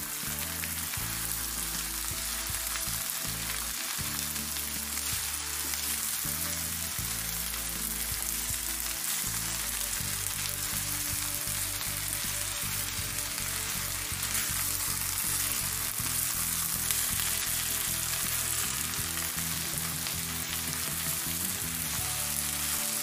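Diced potatoes and onions frying in hot oil in a non-stick pan, a steady sizzle, stirred now and then with a wooden spoon.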